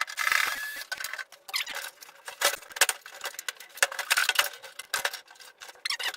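Irregular clicking, scraping and rattling of hand tools and small hard parts, with a scraping sound in the first second, as a CRT television's casing is worked open.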